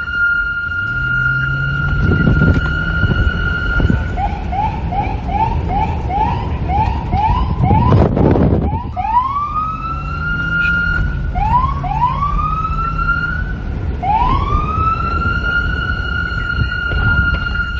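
NYPD police car siren: it holds a steady high tone, switches to a fast run of short rising chirps (about two or three a second), then returns to slower rising wails that climb and settle back on the high tone. A short loud blast of noise cuts across it about eight seconds in, with a low wind rumble underneath throughout.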